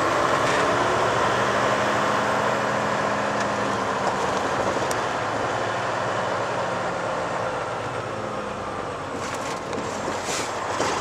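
Volvo VN 880 semi-tractor running bobtail, heard from inside the cab: a steady engine drone under road and wind noise while cruising.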